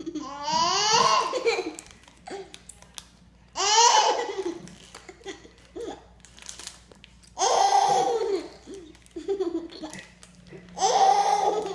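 A young child's high-pitched squeals and laughter, in four loud outbursts a few seconds apart, each falling in pitch, with softer babbling between them.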